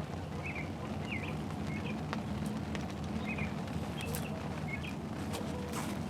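A small bird chirping in short, repeated calls, about once or twice a second, over a steady low hum, with a few scattered sharp ticks.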